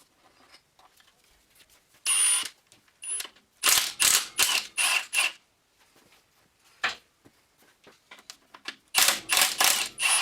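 Ratchet wrench clicking in short bursts, several strokes at a time with pauses between, as bolts are worked loose on a Subaru EJ20 engine during the timing belt removal.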